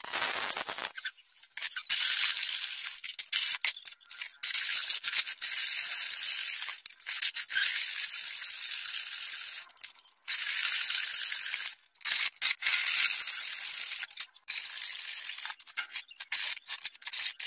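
Small hand-held rotary tool with a thin cutting disc cutting slots into an aluminium plate: a high, gritty grinding hiss in stretches that start and stop abruptly many times.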